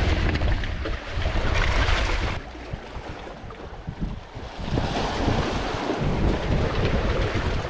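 Wind buffeting the microphone over the wash of surf on a sandy beach. It eases for a couple of seconds in the middle, then picks up again.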